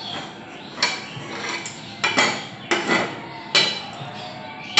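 Metal cookware clanking: a flat griddle (tawa) being handled and set down on top of another pan, four or five sharp clanks with a metallic ring.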